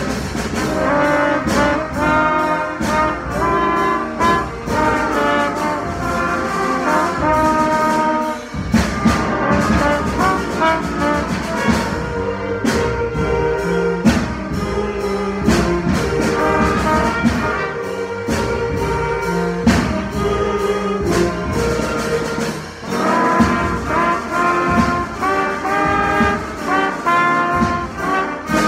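Trumpets playing close by within a brass band, several parts at once with lower notes underneath, and regular sharp percussive accents running through the music.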